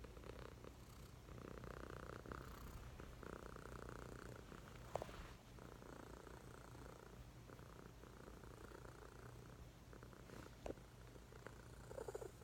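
Sleeping cat snoring faintly, the sound swelling and fading with each slow breath. A couple of brief sharp clicks come about five and ten and a half seconds in.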